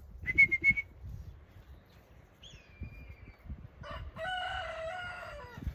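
A rooster crows once near the end, a single held call lasting over a second that drops slightly as it ends. Earlier there are a few short, faint high chirps.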